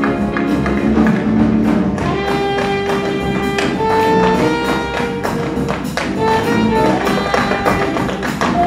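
Live jazz ensemble music: held melody notes over drums and percussion, with tap shoes striking the wooden stage floor.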